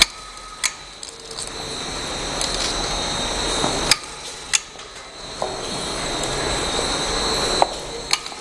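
Labeling machine's gear motor running in spells, cutting off and starting again, with several sharp mechanical clicks between spells.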